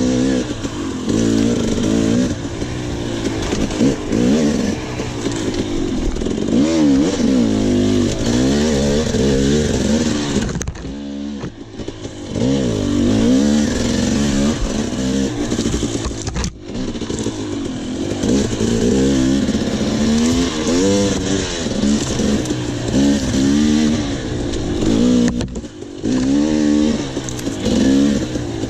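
Enduro dirt bike engine heard from onboard, revving hard and falling back again and again as the rider works the throttle and gears through a race test. It backs off briefly about eleven seconds in and for a moment near sixteen seconds.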